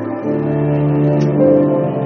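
Background music of sustained keyboard chords, the chord changing about a quarter second in and again about halfway through.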